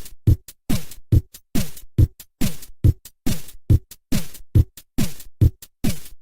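Drum machine beat: a single electronic drum with a quickly falling pitch, struck evenly a little over twice a second with nothing else playing.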